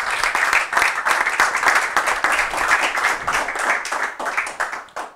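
An audience applauding: dense clapping that thins to a few scattered claps near the end.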